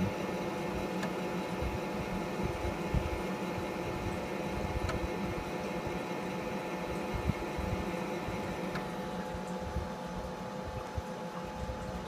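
Texas Instruments Portable Professional Computer running with its floppy drive reading a disk: a steady mechanical hum with a few faint ticks.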